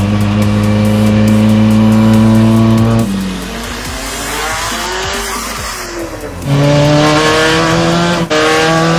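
Modified Abarth 595 running an Alfa Romeo 4C 1.75 TBI turbocharged four-cylinder engine, accelerating hard with its note climbing steadily. About three seconds in the note breaks off and wavers lower for a few seconds. It pulls hard again from about six and a half seconds, with a brief break near the end.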